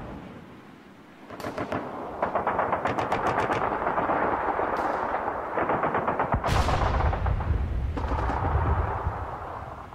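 Rapid bursts of machine-gun fire, then a heavy blast with a low rumble about six and a half seconds in.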